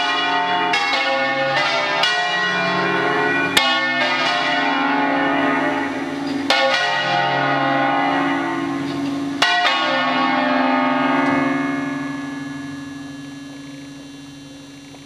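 Church tower bells, swung electrically, ringing a solemn peal: strikes come close together at first, then further apart, about every three seconds, as the bells slow. After the last strike, about nine seconds in, the overlapping tones hum on and fade away as the peal ends.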